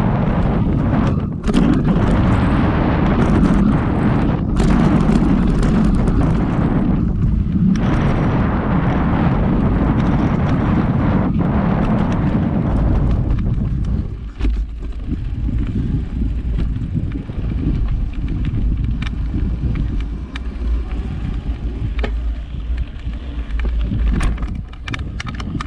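Wind rushing over a handlebar-mounted GoPro and knobby mountain-bike tyres rumbling over a dirt trail, with sharp knocks and rattles from the bike as it hits bumps. About halfway through the rush drops to a quieter low rumble with occasional clicks.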